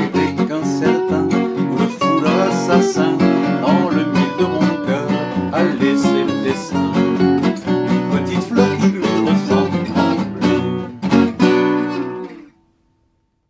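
Two Selmer-style gypsy-jazz acoustic guitars playing together, one strumming rhythm chords and one picking a lead line. The tune ends on a last chord that dies away to silence a little before the end.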